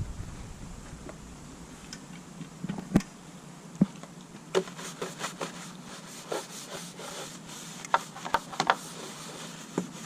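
Scattered light knocks and clicks with some rubbing as a brush and cleaning tools are worked against a boat's hull, scrubbing in bathroom cleaner at a rust stain. Two louder knocks come about three and four seconds in, then a run of quicker taps.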